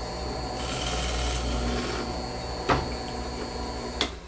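Harbor Freight 8-inch benchtop drill press running with a steady hum and a thin high whine while its bit bores a hole in a wooden board, the cutting heard as a hiss for a second or so. A single knock follows, and about four seconds in the motor is switched off with a click and the whine stops.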